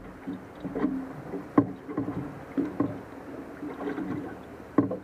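Water slapping and knocking against the hull of a small boat at rest, several sharp slaps over a steady low hum.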